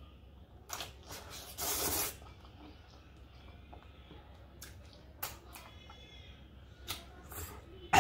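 Spicy noodles slurped into the mouth, with a long hissing slurp about two seconds in, then quiet wet mouth clicks while chewing.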